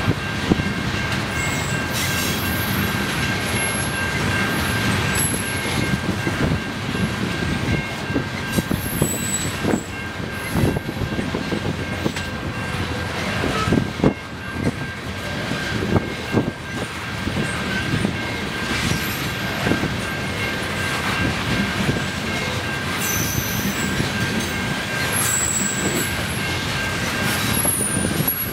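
Tank cars of a freight train rolling past: a steady rumble with wheel clacks and knocks on the rails, and intermittent high-pitched wheel squeals. A steady high tone sits underneath.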